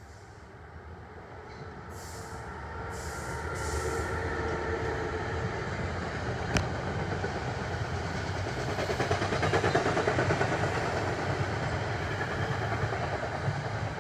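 NJ Transit train approaching and passing, its rumble growing steadily louder to a peak about ten seconds in. A single sharp click comes about six and a half seconds in.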